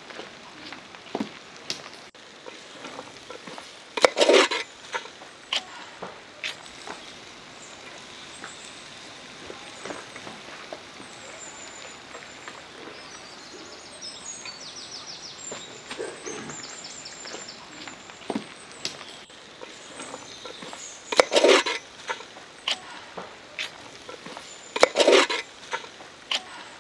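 A metal spatula stirring chopped jackfruit in a steel pot over a wood fire, scraping and knocking against the pot with small clicks. The louder scrapes come about four seconds in and twice near the end.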